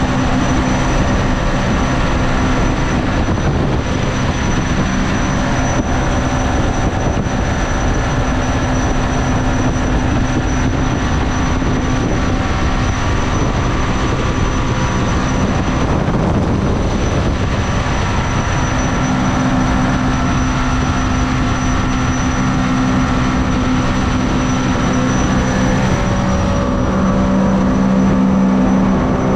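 Mini jet boat's engine running steadily at speed, with the rush of water and wind over it. It holds a steady pitch, eases briefly about halfway, and comes up a little louder near the end.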